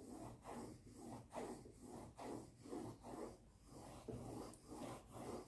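Coloured pencil scratching back and forth across drawing paper in quick, even hatching strokes, about three a second.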